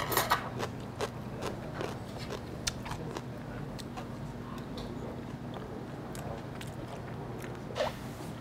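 A person eating close to the microphone: biting and chewing, with short clicks of a metal spoon against the bowls, over a steady low hum.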